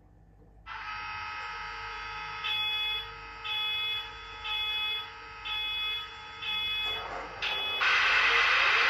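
Sound decoder of a Union Pacific EMD SD70ACE model locomotive playing its diesel start-up sequence through the model's small speaker. A steady electrical hum starts, then a high beeping alarm sounds five times at about one beep a second. Near the end the diesel engine sound starts up, much louder and noisy.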